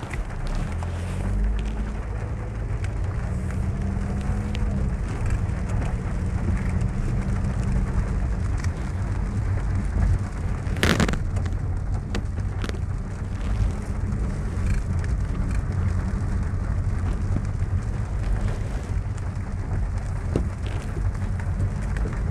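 Heavy rain falling on a car's roof and windshield as the car drives slowly, over a steady low engine and road rumble. The engine note rises over the first few seconds. There is a single sharp thump about eleven seconds in.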